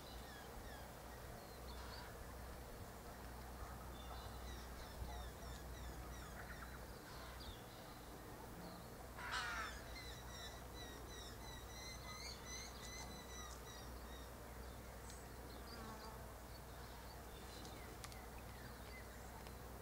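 Faint background birdsong: scattered short chirps and held whistled notes, with one louder harsh call about nine seconds in.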